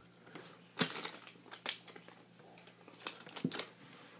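Candy packaging crinkling and crackling as it is handled, with a string of sharp crackles, the loudest about a second in and near the end.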